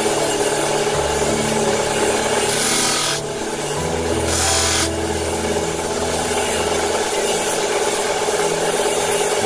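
Wire-making machinery running with a loud, steady rasping, rubbing noise.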